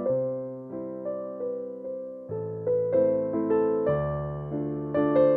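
Background music: a gentle keyboard melody, single notes struck every half second or so, each fading away after it sounds.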